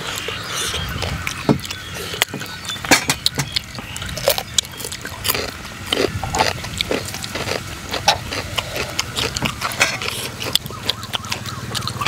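Close-up eating sounds: chewing and wet lip-smacking from people eating a noodle and seafood salad, with many short sharp clicks throughout.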